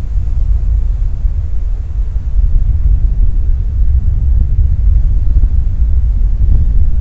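Wind buffeting the microphone: a loud, gusty low rumble that rises a little after about two seconds.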